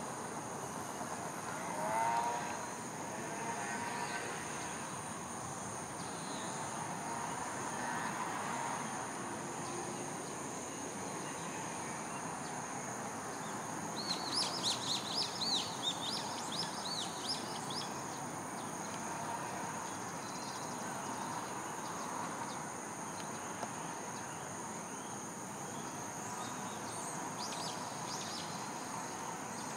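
Outdoor evening ambience: insects chirring in a steady, high-pitched drone, with a short burst of bird chirps about halfway through and a brief lower call near the start.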